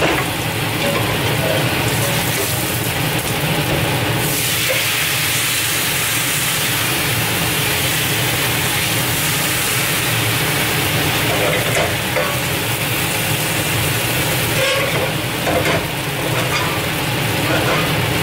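Oil and onion slices sizzling in a hot skillet over a gas burner. About four seconds in, banh xeo crepe batter goes into the pan and the sizzle becomes a louder, brighter hiss that stays steady as the thin crepe fries.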